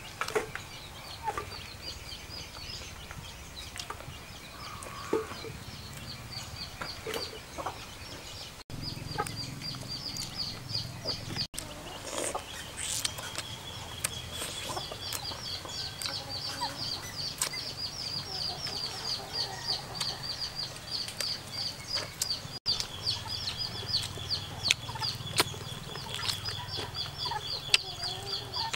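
Chickens clucking and peeping, a quick run of short high chirps several times a second over a steady high tone.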